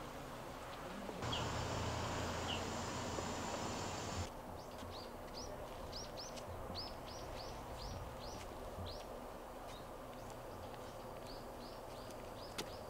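Outdoor ambience with a small bird chirping repeatedly, short high chirps two or three a second through the latter two-thirds. Before that, a louder steady low hum with hiss lasts about three seconds and stops abruptly.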